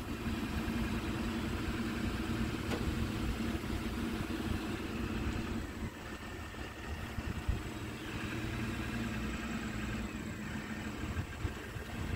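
Engines of utility bucket trucks running steadily at idle while the crew works from the aerial booms, a loud, constant mechanical hum.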